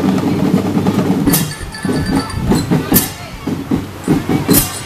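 Marching drum band playing: drums beat a busy rhythm, a sharp crash comes about every second and a half, and bell lyres ring above.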